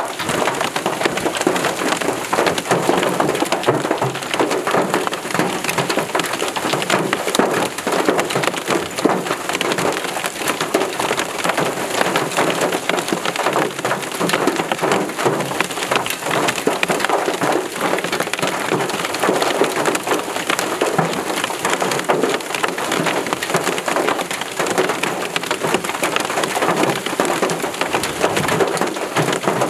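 Hailstorm with heavy rain: a steady, dense clatter of hailstones and rain pelting the ground, with no let-up.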